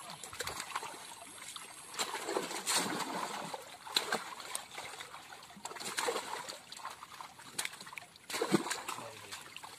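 Irregular splashing and sloshing of shallow pond water as fish flap in a hauled-in net and are grabbed by hand.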